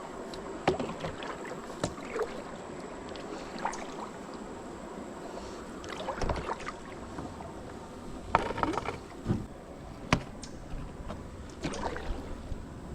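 Kayak moving down a creek: a steady rush of running water, broken by occasional sharp knocks and splashes from the paddle and hull.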